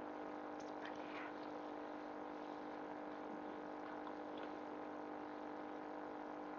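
Sliced onion and garlic frying gently in olive oil in a stainless steel saucepan: a low, steady sizzle with faint scattered crackles, over a steady hum.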